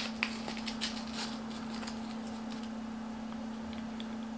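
A few faint clicks from a small plastic hook packet being handled as a hook is taken out, dying away after about a second, over a steady low hum.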